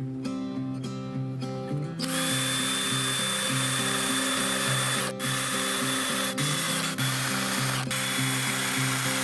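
Background music, with a power tool running under it from about two seconds in: a steady high whine over dense noise, cutting out briefly a few times.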